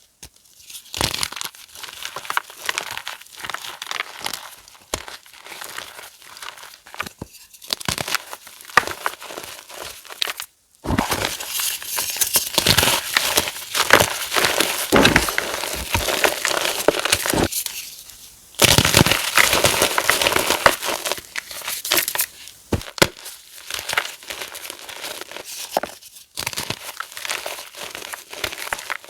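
Blocks of dyed, reformed gym chalk being crushed and crumbled, a dense crunchy crackling made of many small snaps. It comes in several cut-together takes, breaking off abruptly and restarting louder about a third and two-thirds of the way in.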